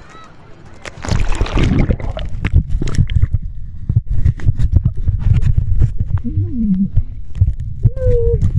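Phone microphone submerged in sea water: about a second in the sound jumps to a loud, muffled low rumble with many sharp knocks as water and handling move against the phone.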